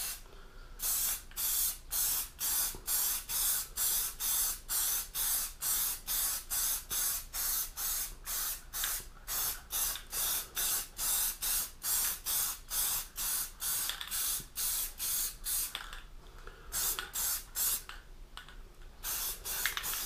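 Aerosol can of lacquer spraying in short, rapid pulses, about two to three a second, mist-coating a dyed wooden board; the spraying stops for about three seconds near the end, then a few more pulses follow.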